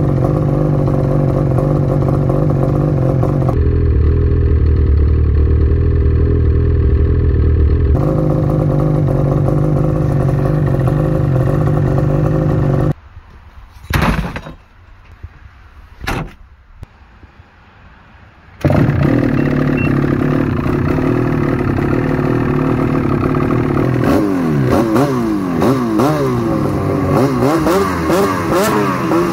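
Ski-Doo 850 E-TEC two-stroke twin snowmobile engine running steadily, then revved in repeated quick throttle blips near the end, the pitch rising and falling with each one; a lightweight aftermarket exhaust can is fitted. Midway the engine sound drops away for several seconds, leaving a couple of sharp knocks.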